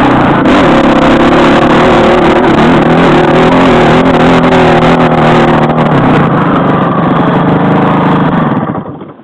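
Dirt bike engine running loud under way along a rough trail, with a steady pitch. It cuts off suddenly near the end.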